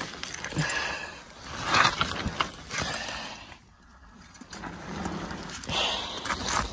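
Broken brick and concrete rubble clattering and scraping with many short knocks as a rescuer crawls through a tunnel dug under collapsed-building debris, with a quieter lull about three and a half seconds in.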